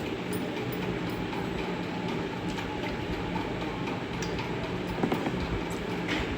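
A steady mechanical rumble with a low hum, and a few faint clicks over it.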